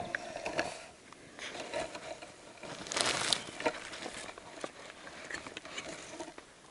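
Footsteps on a forest floor and the rustle of clothing and gear swinging close by, in irregular bursts with a few light knocks, loudest about three seconds in.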